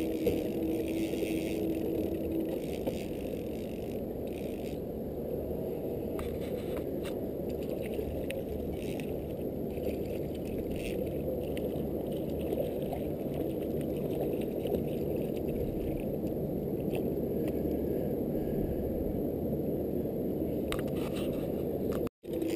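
Boat motor running steadily, a low muffled drone, with faint clicks and scrapes from the fishing reel being wound as a kokanee is brought in. The sound drops out for an instant near the end.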